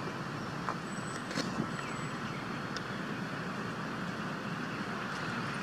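Steady outdoor background noise of distant traffic, with a few faint clicks.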